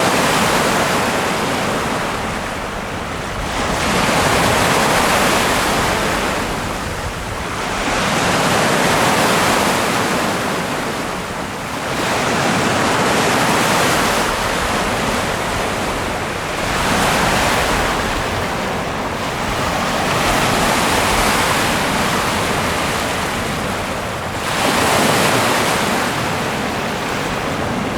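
Ocean surf: waves breaking and washing in, swelling and easing about every three to four seconds.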